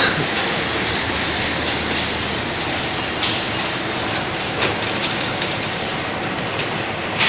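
Automatic vial inspection machine running: a steady mechanical clatter with many small clicks of glass vials knocking together as they are fed along its infeed tray.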